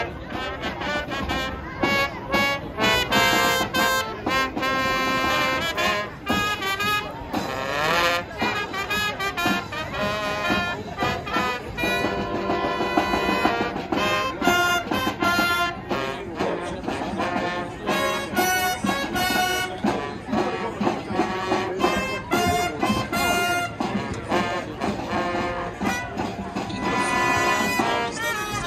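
High school marching band playing a Broadway tune, brass carrying held chords and melody over a steady beat.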